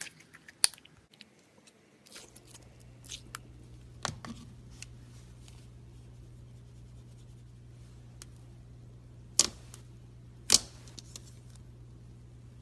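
Sticky slime handled by hand: scattered sharp clicks and pops, with three louder pops, one near the start and two close together near the end.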